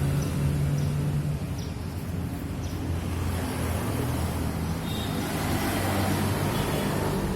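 Steady low rumble of motor vehicles: road traffic or an engine running nearby.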